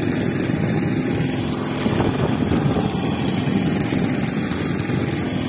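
Steady drone of a motorized fishing boat's engine, mixed with the rush of strong wind on the microphone.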